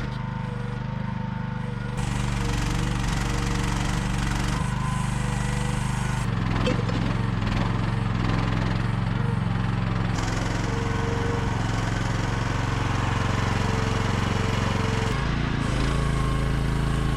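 Small gasoline engine of an AGT QH12R mini excavator running steadily, its sound stepping up about two seconds in and shifting a few times after.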